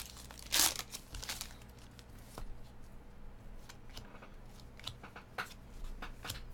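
Foil trading-card pack wrapper crinkling in a couple of loud rustles in the first second and a half, then the soft flicks and slides of baseball cards being thumbed through one by one.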